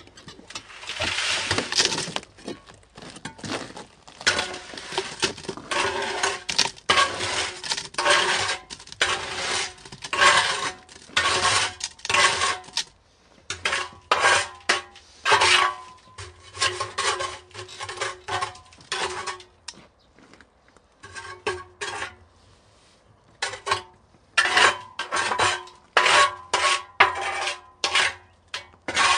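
Steel trowel scraping and scooping wet concrete out of a concrete mixer drum, stroke after stroke about once or twice a second, each scrape with a metallic ring. The strokes stop for a couple of seconds about two-thirds through, then resume.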